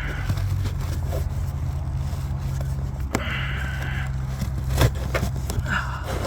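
Plastic scraping and clicking as the cabin air filter housing behind a car's glovebox is worked at, with a longer scrape about three seconds in. A steady low hum runs underneath.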